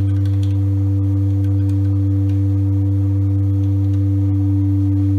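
An organ pipe sounding on a voicing machine, holding one steady low note without any change in pitch or loudness while it is checked against an electronic tuner.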